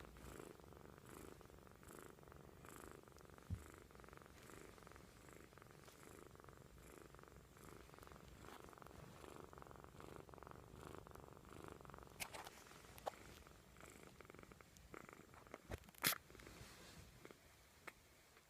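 Sleeping kitten snoring faintly, one rhythmic breath after another. Two sharp clicks sound in the second half.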